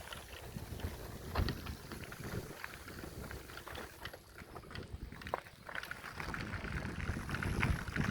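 Wind buffeting the microphone over a low rumble of a bicycle in motion, with scattered short rattles and knocks.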